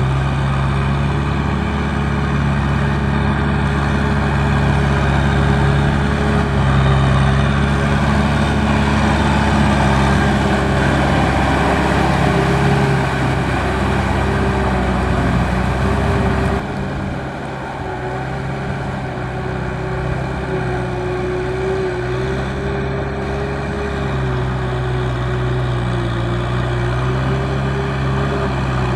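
Farm tractor's diesel engine running steadily while pulling a loaded trailer. About 17 seconds in the sound suddenly drops in level and loses much of its deep rumble, then carries on.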